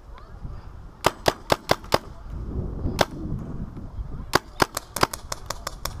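Magazine-fed paintball marker firing: a quick burst of about five shots, a single shot, then a rapid string of about ten shots.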